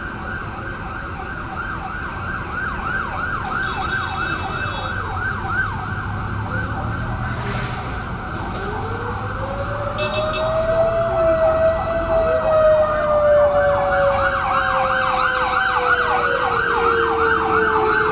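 Emergency vehicle sirens: a fast yelp repeating several times a second together with a slower wail rising and falling, growing louder about ten seconds in.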